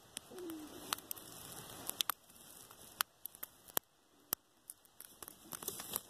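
Faint, scattered small clicks and scratches of a thin aluminium pick scraping lint out of a phone's micro USB port.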